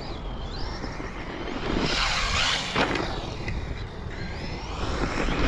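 Rlaarlo Omni Terminator RC monster truck's brushless electric motor whining, its pitch rising and falling as the throttle is worked.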